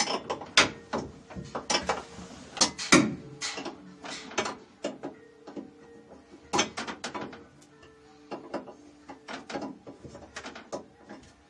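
Open-end wrench tightening the top bolts of a rear strut-tower brace bar by hand: an irregular run of sharp metallic clicks and clinks with brief ringing, easing off for a moment a little past the middle.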